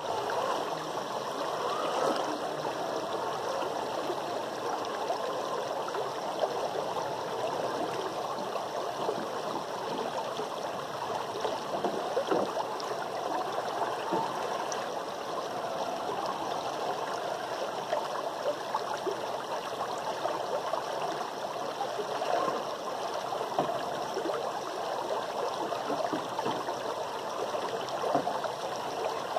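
Shallow rocky stream running over stones and small riffles: a steady babble of flowing water.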